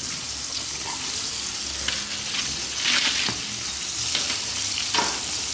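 Chicken frying in hot oil in a wok on a gas burner: a steady sizzling hiss, with a few light knocks of utensils.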